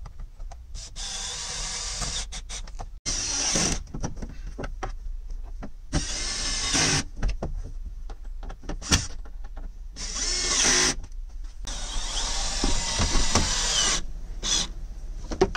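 Cordless drill/driver driving fasteners into cab interior trim, in repeated short runs of one to two seconds with pauses between them.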